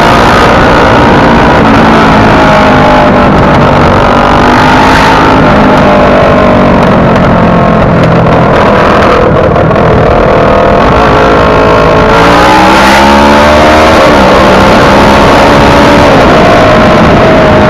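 Motorcycle engine running under way beneath a loud, steady rush of wind and road noise on the microphone. The engine's pitch shifts up and down, with a clear rise as it accelerates about twelve seconds in.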